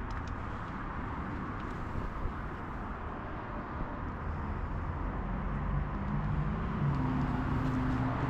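Steady road traffic noise. A vehicle engine comes in with a low hum about halfway through and grows a little louder toward the end.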